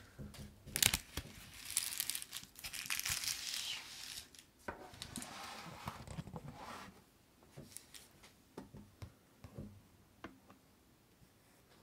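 Rustling and crinkling handling noise with sharp clicks, loudest in the first few seconds and again a little later, then dying down to a few faint clicks.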